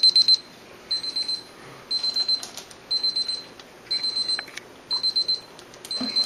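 Electronic timer alarm beeping: a quick run of high beeps repeating about once a second. It signals that the five-minute time limit has run out.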